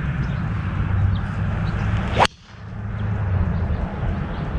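Golf driver swung at full speed: a short rising swish, then a single sharp crack as the clubhead strikes a teed golf ball, a little over two seconds in.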